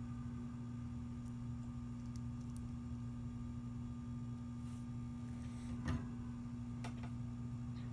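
A steady low electrical hum, with a couple of faint clicks near the end.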